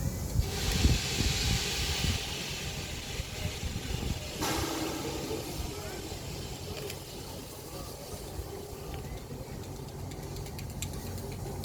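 Steam hissing from the Peppercorn A1 steam locomotive Tornado, starting about half a second in, with a second sudden release of steam about four and a half seconds in, over a low rumble and people talking.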